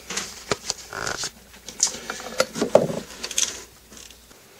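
Handling noise: a scatter of light knocks and clicks of hands and objects on a wooden workbench. A brief squeak comes about a second in and a short pitched sound near three seconds.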